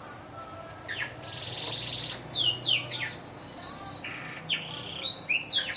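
Yorkshire canary singing, starting about a second in. It gives high rapid trills broken by runs of quick falling notes, and near the end a string of falling notes at about three a second.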